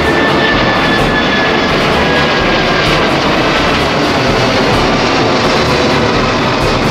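Jet engines of an AirAsia X Airbus A330-300 (Rolls-Royce Trent 700 turbofans) at climb power after takeoff: a loud, steady rushing roar with a thin high whine that drifts slightly lower in pitch during the first half.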